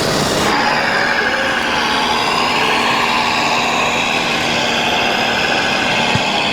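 Electric motors and gears of RC model machines running, a steady hum with a whine over it.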